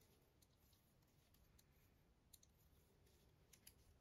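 Near silence with faint, irregular clicks of Addi metal circular knitting needles, about eight in all, as stitches are worked.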